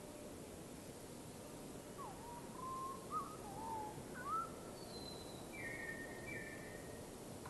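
Wild birds whistling faintly over a steady hiss: a string of low whistled notes that slide down and up, then a short high falling note and two brief doubled notes.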